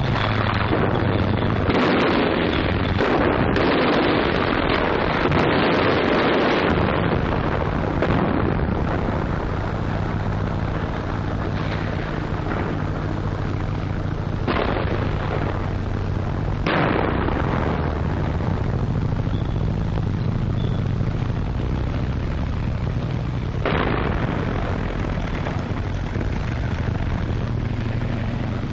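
Archival 1944 street-fighting recording: a dense run of gunfire and explosions for the first several seconds, then single loud reports about 8, 14, 17 and 24 seconds in, over a steady low drone.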